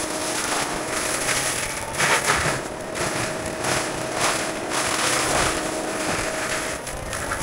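Heavy equipment running with a steady engine and hydraulic whine, under a series of irregular crackling, snapping bursts of brush and wood being broken.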